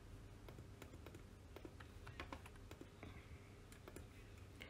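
Near silence with faint, irregular clicks from a computer mouse and keyboard.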